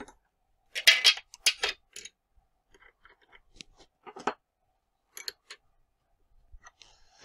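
Scattered metallic clicks and clinks of a center drill being fitted by hand into a CNC mini mill's spindle tool holder, the loudest about one second in.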